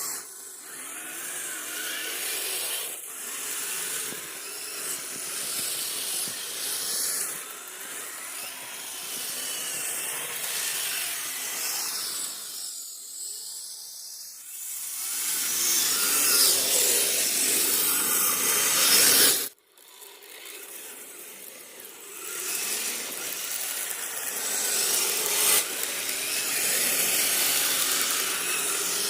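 Radio-controlled rock crawler driving through snow: a rough, uneven grinding and rubbing from its drivetrain and tyres working through the snow, swelling and easing as it moves, with a sudden brief cut-out about two-thirds of the way through.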